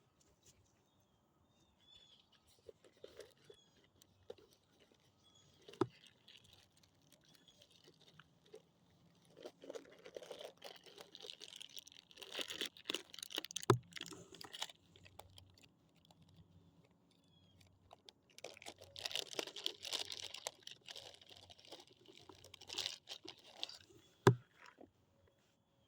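Close, irregular rustling and crackling handling noise in two longer spells, with three sharp clicks, from fetching pliers and working at a hook that a bluegill has swallowed whole.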